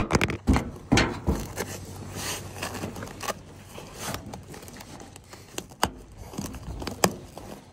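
Irregular clicks, snaps and scrapes of an Alpinestars motocross boot being buckled up, its buckles catching and the boot knocking on a plastic truck tailgate.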